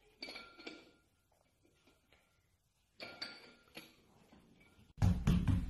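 Faint metallic clinks of a hand-held dumbbell's plates knocking together as it is swung, with a short ring after each, in two small clusters. Near the end a much louder, deeper burst of sound comes in.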